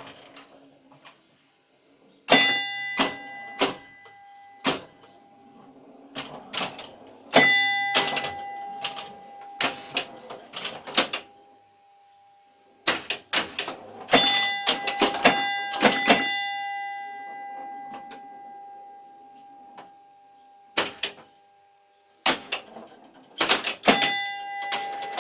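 1966 Williams A-Go-Go electromechanical pinball machine in play: flurries of sharp mechanical clacks and relay clicking with scoring chimes ringing out, several times over with short lulls between. One chime tone lingers for a few seconds after the busiest flurries.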